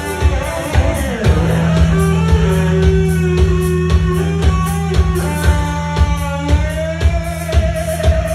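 Rock music with a lead guitar solo over a steady drum beat and bass: the guitar holds long notes, one sliding up in pitch near the end.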